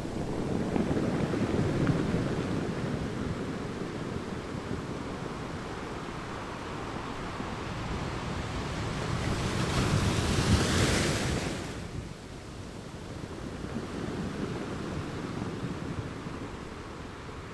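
Sea waves washing on a shore: a continuous surf rush that swells with a larger breaking wave about ten seconds in, then falls away abruptly a couple of seconds later.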